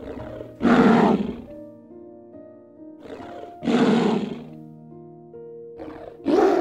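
Lion roaring three times, each call about a second long and about three seconds apart, over background music with sustained notes.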